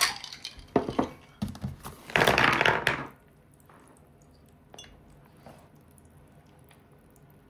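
A few sharp knocks and clicks of tableware on a dinner table, then a loud rustling burst of just under a second about two seconds in, as someone moves close against the camera. After that the room is quiet, with only a faint tick or two.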